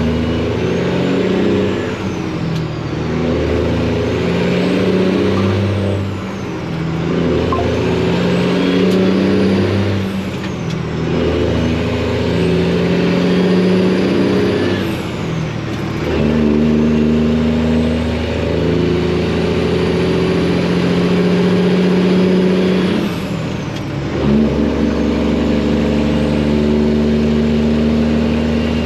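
Detroit diesel engine of a Freightliner semi truck pulling up through the gears. The revs climb in each gear and drop at each shift, about five times, with the turbo whistle rising and falling along with them.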